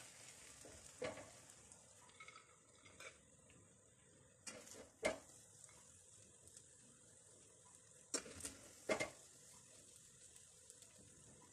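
Slotted metal spoon scooping cooked rice out of a steel pot and onto a ceramic plate: a few scattered soft scrapes and clicks over near silence, the clearest about five and nine seconds in.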